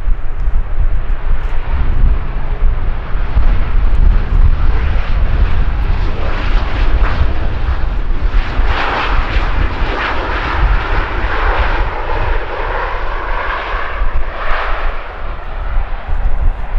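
Boeing 737-800 airliner's CFM56-7B jet engines running as it rolls along the runway on landing, over a steady deep rumble. A louder rush of engine noise builds about eight seconds in and eases off near the end.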